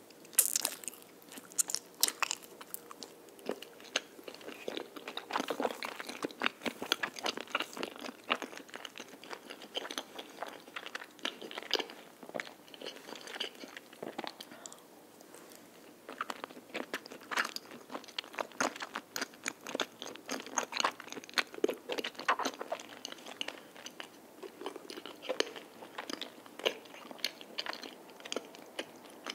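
Close-miked chewing of a soft, squishy chocolate cream rice cake (mochi-style tteok): a bite about half a second in, then sticky, wet chewing and mouth clicks, with a short lull in the middle.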